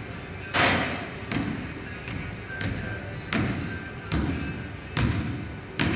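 Basketball bouncing on a hardwood gym floor: a string of about seven thuds at uneven spacing, each echoing in the large hall. The first, about half a second in, and one near the end are the loudest.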